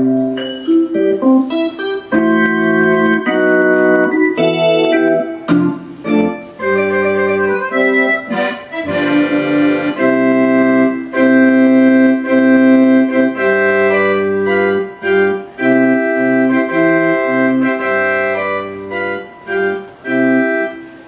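Casio LK-300 electronic keyboard playing a melody over chords, its notes held at a steady level rather than dying away. The music fades out near the end.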